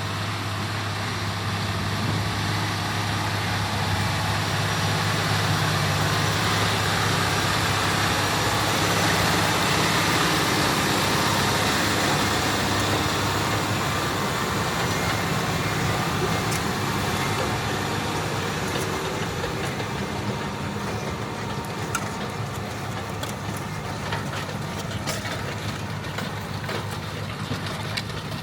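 John Deere 9360R tractor engine working steadily under load as it pulls an 8-bottom Salford moldboard plow. The drone grows louder until about ten seconds in, then slowly fades as the tractor moves away, with scattered light ticks in the second half.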